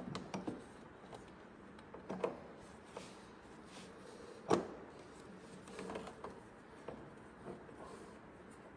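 Scattered light knocks and clicks of a snowmobile's drive chain and gears being handled in the open chain case, as the chain is worked onto the gears. The loudest knock comes about four and a half seconds in.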